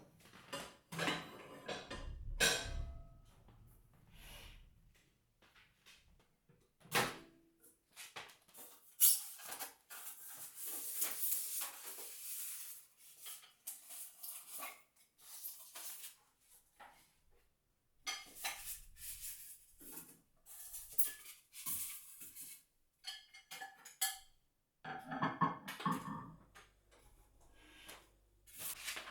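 Kitchen handling sounds while a new microwave is swapped in: scattered knocks and clicks, a few seconds of rustling about ten seconds in, and a faint low hum starting near the end.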